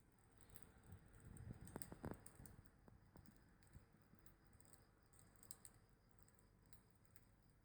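Wood fire burning quietly, with faint scattered crackles and small pops throughout and a brief cluster of louder soft knocks about one and a half to two seconds in.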